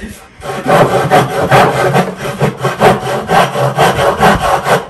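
Hand saw cutting through a wooden plank in quick back-and-forth strokes, about three a second, starting about half a second in.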